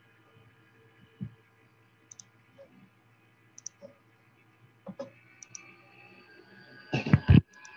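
Scattered faint clicks and taps over a faint steady hum, picked up through a video call's microphone, then a loud cluster of knocks near the end.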